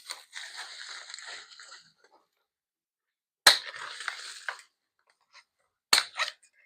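Bike packing material being pulled off and crushed: two spells of crinkling and rustling, each starting with a sharp snap, the second about three and a half seconds in, and a short click near the end.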